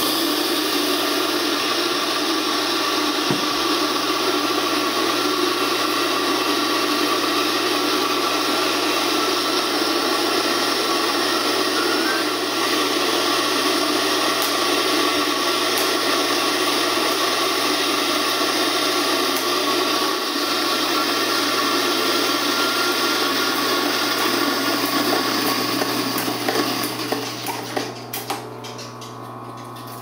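Rancilio Rocky burr coffee grinder running on white minute rice, its burrs set to just about touching, grinding the rice to flour to scour the burrs: a steady grinding whir over a low motor hum. About four seconds before the end it gets quieter and uneven, with a few clicks.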